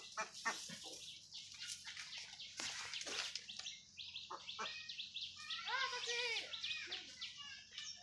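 Domestic ducks calling in short notes, with a longer run of pitched calls about six seconds in and scattered sharp clicks in between.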